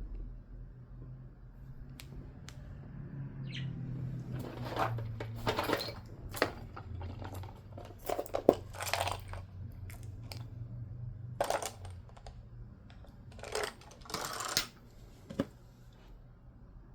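Small metal tools and lock parts being handled on a workbench: scattered clicks, clinks and short scraping and rustling bursts, over a low hum that stops about twelve seconds in.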